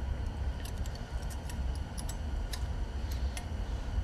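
Light metallic clicks and ticks, scattered and irregular, from a steel brake caliper bracket being handled while thin metal brake-pad clips are pressed and slid into it. A steady low hum runs underneath.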